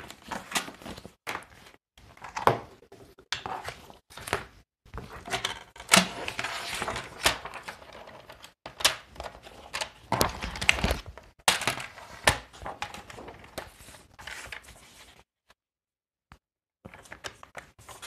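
Paper trimmer cutting printed card tags apart: an irregular run of clicks and knocks as the sheet is set in place and the cutter worked, with short scratchy cutting stretches between them. It drops to a few faint clicks in the last few seconds.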